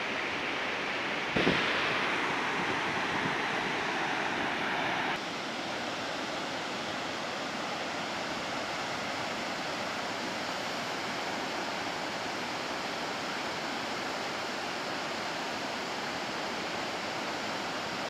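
Waterfall plunging into a rocky gorge: a steady, even rush of falling water. A brief knock comes about a second and a half in, and the level drops slightly about five seconds in.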